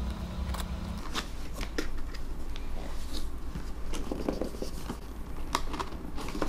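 Scissors snipping through the seal of a cardboard box, then scattered clicks and rustles of the cardboard lid and flaps being handled and lifted open.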